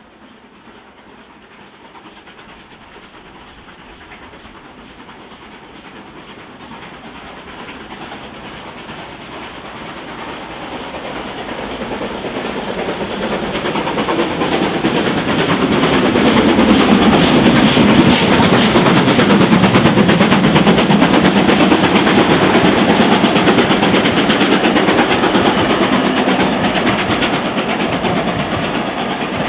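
Steam locomotive hauling a train: it approaches, passes close around two-thirds of the way through with rapid rhythmic beats, then begins to move away.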